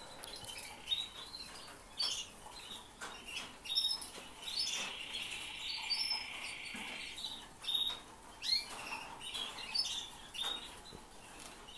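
Canaries chirping with short, high calls throughout, and one steady trill lasting about two and a half seconds near the middle. Short rustles fall between the calls.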